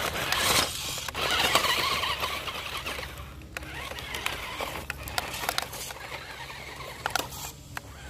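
Toy RC rock crawler driving over broken concrete and brick rubble: its small electric motor and gearbox whir while stones scrape and click under the tyres. Louder for the first few seconds, then fainter with scattered clicks of shifting stones.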